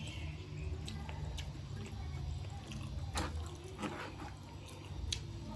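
Close-miked eating sounds: chewing with a few soft wet clicks and smacks, over a low steady hum.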